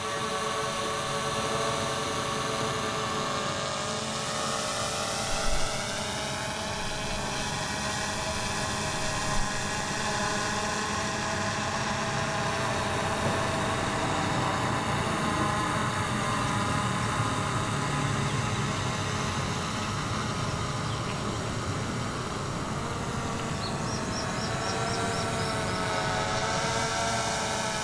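DJI Mavic Air 2 quadcopter in flight, its propellers giving a steady multi-toned whine. The pitch drifts up and down as the motors change speed while it manoeuvres.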